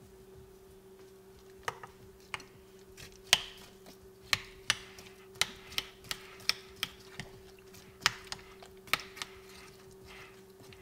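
Irregular sharp clicks and taps, about fifteen over several seconds, as diced apple pieces are dropped by hand into a glass bowl of oatmeal and knock against the glass.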